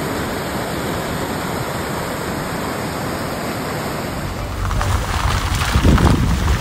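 A steady rushing noise, which turns rougher and a little louder about five seconds in.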